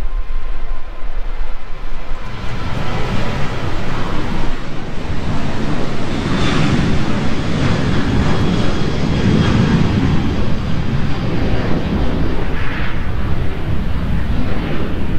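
Jet airliner taking off, its engines making a steady roar that builds from about two seconds in and is loudest midway.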